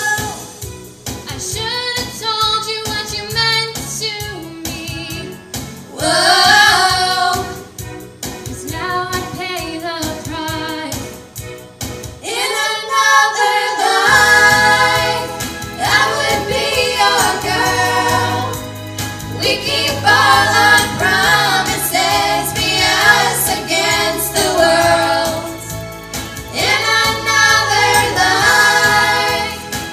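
A group of teenage girls singing a pop song together into microphones, in harmony over a backing track with a steady bass line; the bass drops out for about two seconds near the middle, then comes back in.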